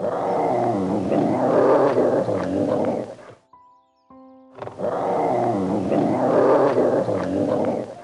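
Raccoon growling and chittering in a rough, gravelly call about three seconds long, heard twice with a short pause between.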